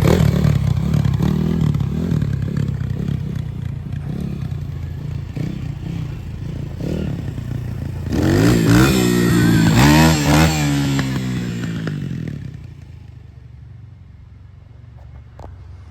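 Apollo RXF 150cc dirt bike engine running under throttle, its pitch rising and falling several times about eight to ten seconds in. It then fades away quickly as the bike moves off, leaving only faint background.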